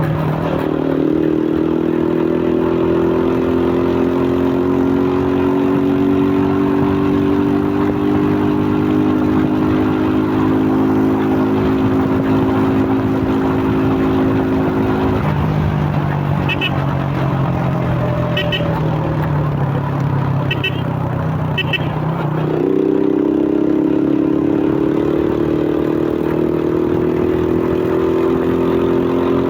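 Suzuki Fiero single-cylinder motorcycle engine, fitted with a K&N pod air filter, pulling under throttle on the move, its pitch climbing slowly. About halfway through it eases off to a lower, steadier note, then picks up sharply again about three quarters through and climbs on.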